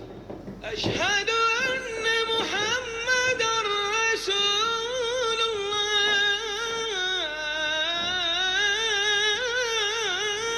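Music with a high singing voice holding long notes whose pitch wavers and slides.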